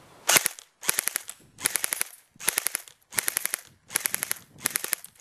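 Crosman Pulse R-76 electric airsoft rifle firing on full auto in short bursts: about eight quick bursts of several rapid shots each, one after another.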